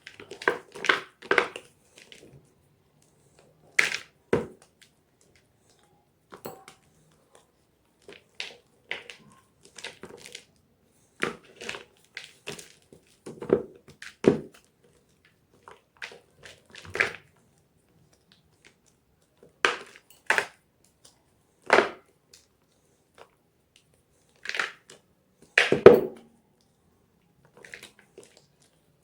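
Blocks of gym chalk being crushed, making irregular crunchy cracks with pauses between them. Some come in quick clusters, and the loudest falls near the end.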